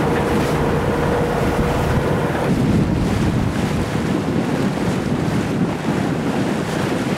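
Wind buffeting the microphone and water rushing along the hull of a Beneteau Oceanis 45 sailing yacht under way in a breeze with waves on the beam. A faint steady hum runs through the first two and a half seconds, then stops.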